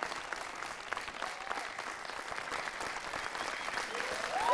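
Studio audience applauding, a steady even clapping. Near the end a held note starts over it.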